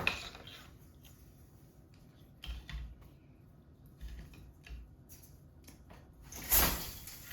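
Wooden floor loom clacking as treadles are pressed and the shafts lift and drop: scattered short knocks and clicks, with one louder knock near the end.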